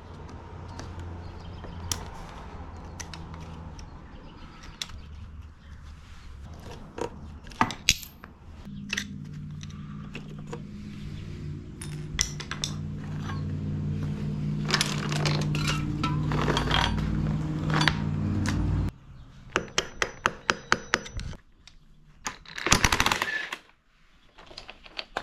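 Hand tools and metal parts clinking and scraping while the chain and countershaft sprocket come off a Suzuki DRZ400. A steady mechanical hum runs through the middle, and near the end comes a quick run of even clicks and a short burst of noise.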